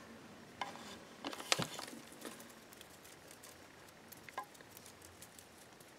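Faint scattered taps and rustles of a plastic bottle trap and straw being handled, the sharpest tap about one and a half seconds in, with little else between them.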